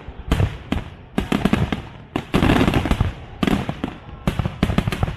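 Aerial fireworks display going off in repeated volleys of sharp bangs and crackle, with one long dense burst near the middle and quick runs of cracks before and after it.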